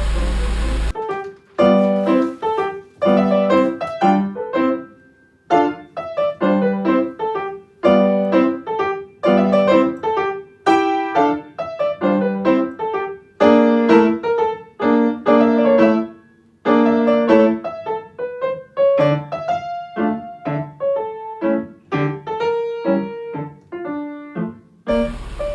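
Solo piano music: a run of short struck notes and chords. A steady rushing noise cuts off about a second in, when the piano starts, and comes back just at the end.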